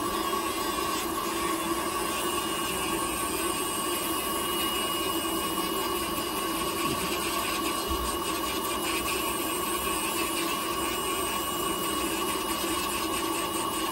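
Podiatry rotary nail drill running at a steady, even pitch, its burr grinding down a toenail.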